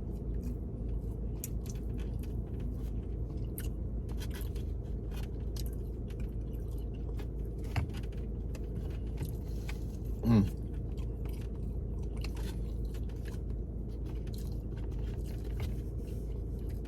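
A person chewing and biting jerk chicken close to the microphone, with many small wet clicks, over a steady low hum inside a car. About ten seconds in comes one short hum of the voice.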